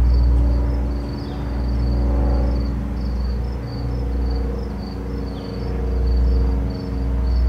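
Slow ambient drone with steady held tones and deep low notes that swell and fade every few seconds. Over it, insects chirp in a regular high-pitched pulse, a few times a second.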